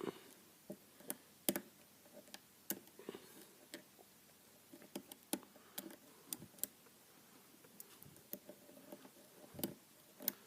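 Faint, irregular clicks and scrapes of a lock pick and tension wrench working the pins of a pin-tumbler lock fitted with security pins, about a dozen sharp ticks with gaps between. The picker suspects he has overset a pin.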